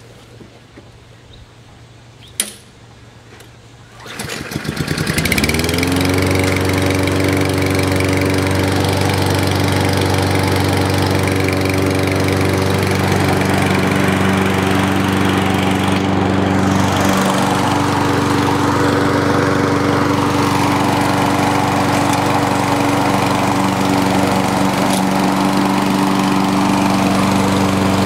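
Cold start of a 2011 Ariens XT-7 self-propelled walk-behind lawn mower, a pull-start engine with no primer: after a sharp click, the engine catches about four seconds in, revs up and settles into a steady run.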